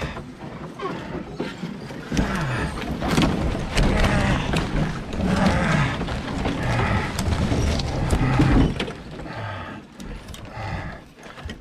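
Heavy breathing and low, falling grunts from a man straining under a canoe carried overhead, with twigs snapping and branches scraping as he pushes through dense brush.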